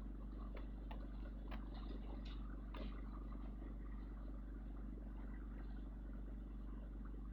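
Steady low hum of a running vehicle engine, with a few light clicks and rattles in the first few seconds.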